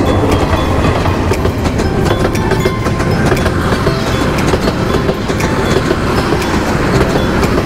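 A train running past on the rails, a steady loud rumble with rapid wheel clicks and rattles.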